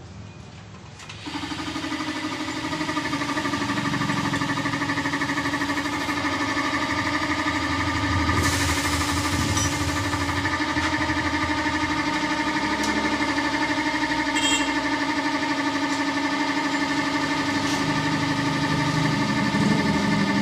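Air compressor starting up about a second in and running steadily, pumping air through a hose into a freshly mounted tubeless motorcycle tire to inflate it and seat its beads.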